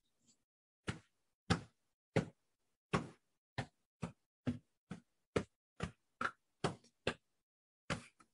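A run of about fourteen short, light taps, roughly two a second and unevenly spaced.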